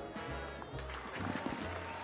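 Swing-style jazz dance band music, with a bass stepping about two notes a second under sustained horn-like tones.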